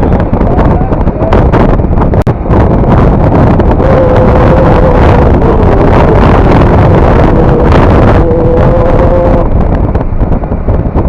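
Bajaj Avenger 220 Cruise single-cylinder motorcycle riding at road speed, heavy wind buffeting the rider's microphone over the engine. In the middle a steady engine note comes through above the wind noise.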